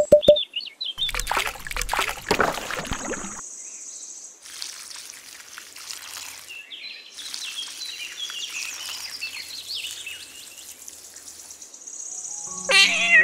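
Water trickling and pouring from a small metal watering can onto sandy soil, with birds chirping in the background. A cat meows near the end.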